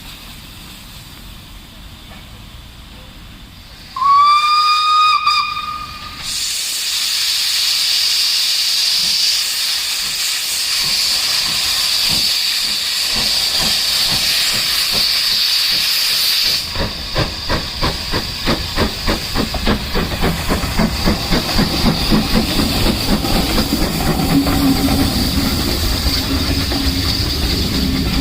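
Steam locomotive Holly Bank No.3 sounds its whistle once, briefly, with a slight rise in pitch. A loud steady hiss of steam follows. Then the exhaust beats of the engine pulling away begin, coming faster and faster as it gathers speed.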